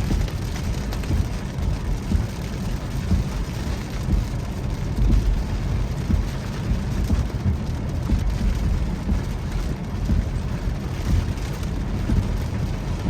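Rain hitting a moving car, heard from inside the cabin: a steady low rumble of road and engine noise, with many small scattered taps of drops on the roof and glass.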